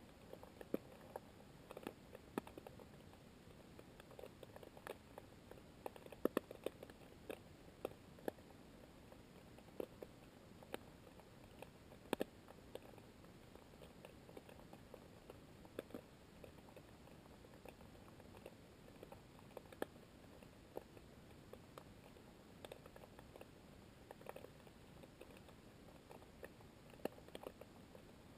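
Faint underwater ambience of shallow coastal sea: irregular soft clicks and ticks, a few a second, over a quiet hiss, with a handful of sharper clicks.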